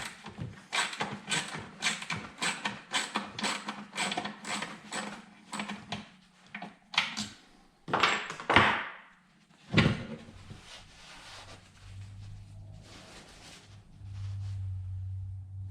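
Hand ratchet clicking in quick, repeated strokes while the throttle body bolts are worked loose, followed by a scrape and a sharp knock of metal parts. A steady low hum comes in near the end.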